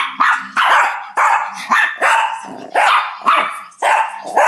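Shih Tzu barking over and over, about two barks a second.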